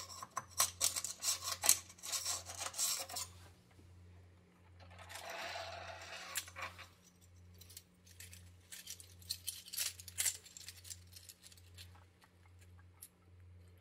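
A metal scraper prying a 3D-printed plastic dragon off the printer bed, a quick run of clicks and scrapes, then the articulated dragon's plastic segments clicking and rattling against each other as it is lifted and flexed in the hands.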